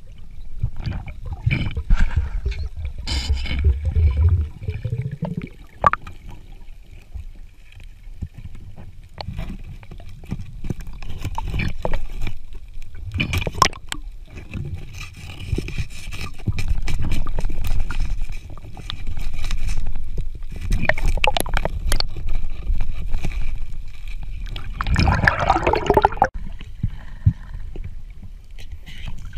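Underwater sound picked up by a diver's camera: a continuous low rumble of moving water with many short clicks and knocks as the diver works over the rocky seabed, and a louder rush of noise about 25 seconds in.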